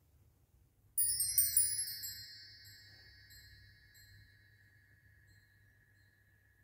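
Hanging bar chimes swept once about a second in: a sudden shimmer of many high metal tones that dies away over a few seconds, while a lower tone keeps ringing to the end.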